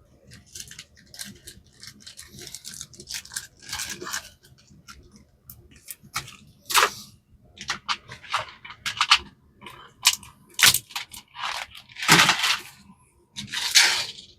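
A small parts bag crinkling and rustling in irregular bursts as small rubber feet are packed away, with a few sharp clicks of parts being handled.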